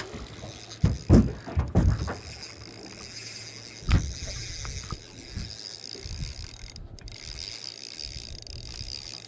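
Spinning reel being wound in, a steady high whirring of the reel's gears, with a few knocks in the first two seconds and a sharp click about four seconds in.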